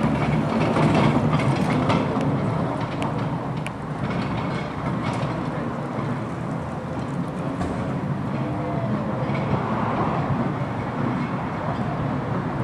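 Vintage open-top double-deck electric tram running along its track, with a steady rumble and sharp clicks of the wheels over the rails in the first few seconds.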